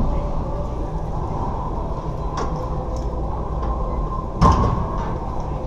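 A racquetball smacking, loud and sharp, about four and a half seconds in, ringing briefly in the enclosed court, with a fainter knock about two seconds earlier, over a steady low hum.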